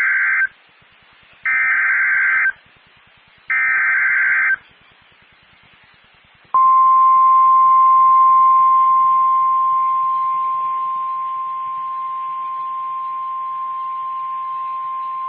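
Emergency Alert System tones from a NOAA Weather Radio broadcast. First come three one-second warbling SAME digital header bursts, about a second apart, encoding the next fire warning. A couple of seconds later a single steady 1050 Hz weather-radio alert tone sounds for about nine seconds and cuts off sharply.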